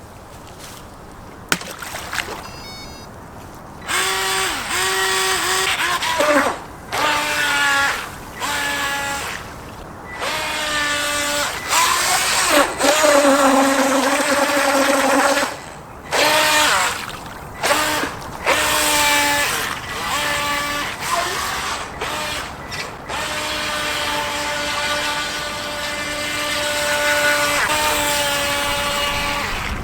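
Electric motor of a JJRC Latitude RC speedboat whining in repeated throttle bursts, its pitch rising and falling with each blip; after a run of short bursts it settles into a longer, steadier whine in the last third.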